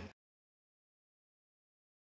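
Silence: the sound track drops out completely just as a voice and background music cut off at the very start.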